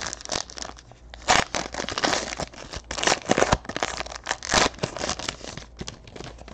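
Foil wrappers of 2018 Panini Chronicles baseball card packs crinkling and tearing as they are ripped open by hand, in quick uneven bursts with a sharp rip about a second in.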